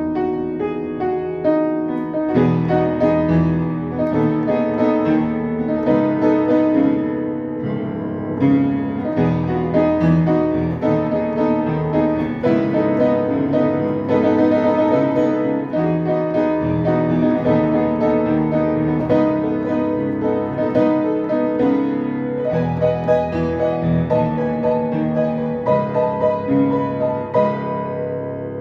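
Piano music: a steady flow of notes and chords.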